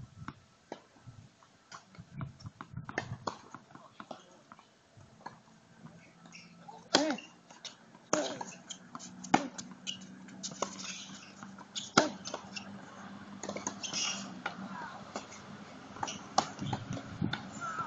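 Tennis rally on a hard court: a run of sharp pops as the ball is struck by the rackets, spaced roughly a second or more apart, the loudest about twelve seconds in. Faint voices in the background.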